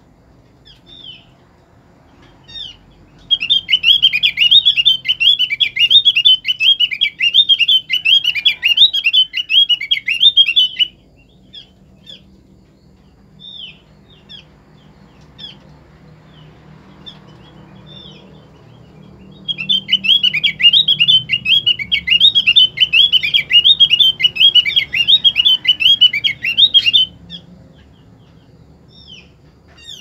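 Female opyor bird calling to the male: two long, rapid, warbling chatters of about seven seconds each, with single high chirps scattered between them.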